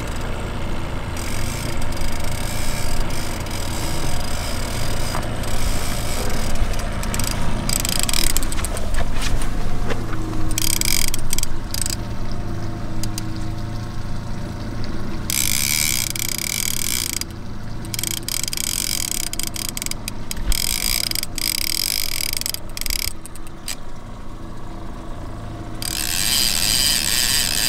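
Trolling reel's drag clicking and zinging in several bursts of a few seconds each as a hooked king salmon strips line on a long run, over the low steady hum of the boat's motor.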